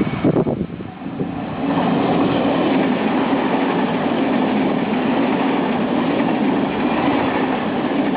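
A train passing close by on the tracks, with loud steady rolling noise of wheels on rail. The sound settles into an even run about two seconds in and begins to fade right at the end.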